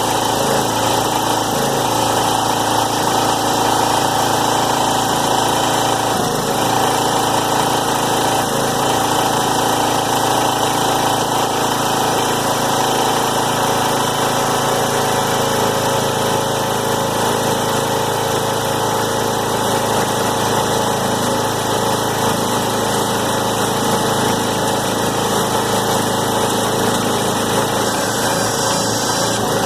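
Small gasoline engine running steadily at a constant speed, driving a recycling baler's hydraulic pump.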